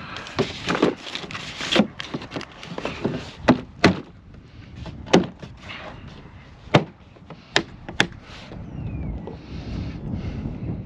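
Chainsaw storage box being handled and shut: a run of sharp clicks and knocks, the loudest about 3.5, 5 and 7 to 8 seconds in, then a steadier low noise near the end.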